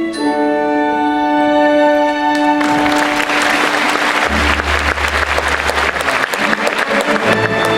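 An orchestra holds the final chord of a stage-musical song. About two and a half seconds in, an audience breaks into applause that continues, with low held orchestral notes under it.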